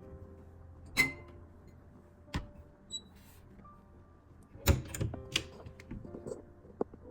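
Cups and coffee tools being handled at a home espresso bar: a few sharp clinks and knocks, one about a second in, another a little later, and a cluster around five seconds, over a low steady hum.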